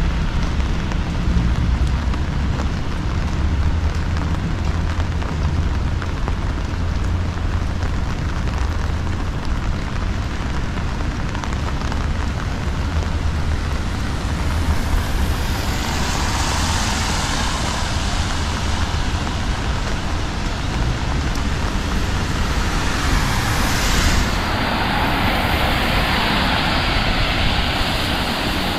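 Heavy rain with wind buffeting the microphone as a low, steady rumble. A louder hiss swells up around the middle and again near the end.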